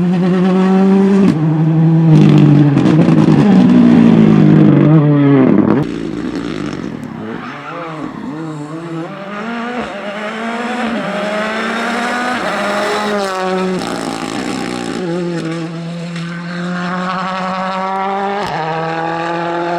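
Ford Fiesta R5 rally car's 1.6-litre turbocharged four-cylinder engine at full throttle. It drops sharply in pitch and loudness about six seconds in. Then it pulls hard again, the revs climbing and falling back at gear changes twice.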